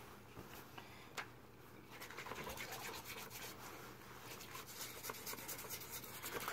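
Faint, rapid scratchy rubbing from hands scrubbing inside a bucket, in quick repeated strokes that thicken from about two seconds in.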